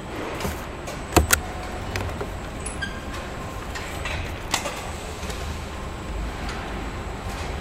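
Car assembly line at work: a steady machinery hum with several sharp metallic clanks, a close pair about a second in and another past the middle, and a brief pitched beep near three seconds.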